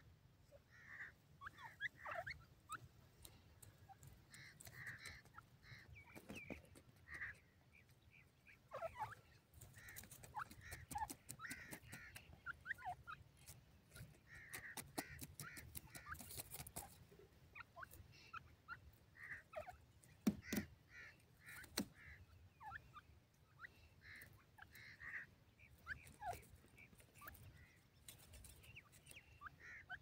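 Grey francolins giving quiet, short calls in small clusters every second or two, with a few sharp clicks in between.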